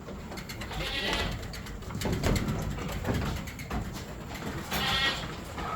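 Sheep and lambs bleating in a pen, with one call about a second in and another about five seconds in, over a low shuffling background.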